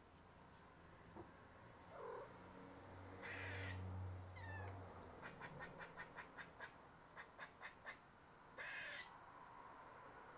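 Faint cat vocalizing while it watches a squirrel: a short wavering meow about two seconds in and a few short raspy bursts, with two runs of quick, sharp clicks, about five a second, in the middle.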